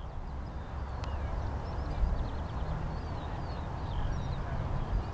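Distant Boeing 757-200 jet engines, Rolls-Royce RB211s, at takeoff power early in the takeoff roll: a low, steady rumble that grows slightly louder, with scattered high chirps over it.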